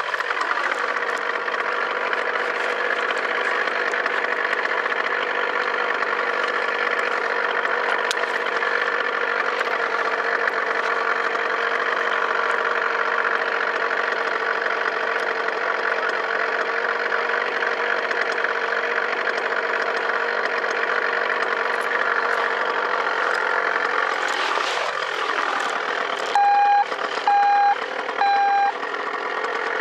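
Paramotor engine running steadily on the ground, a constant hum with no change in speed. Near the end, three short electronic beeps about a second apart sound over it.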